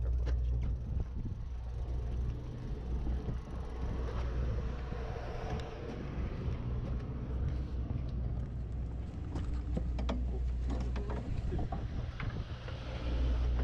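Fishing boat's engine running with a steady low hum, with scattered clicks and knocks over it.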